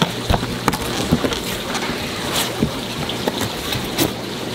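A cardboard shipping box being opened by hand and its styrofoam liner lid lifted off, making an irregular run of rustles, scrapes and light knocks.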